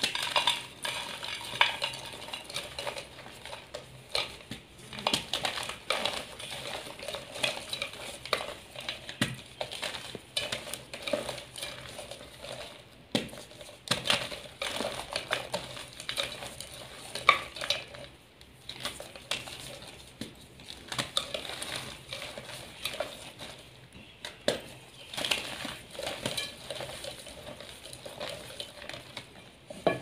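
Blocks of dyed gym chalk crushed and crumbled by hand: irregular dry crunching and crackling, with sharp clicks as chunks knock against the plate.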